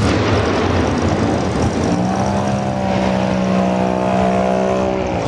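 Muscle car engines running with a loud, deep rumble. About two seconds in, one engine holds a steady high rev that carries for some three seconds, then drops away near the end.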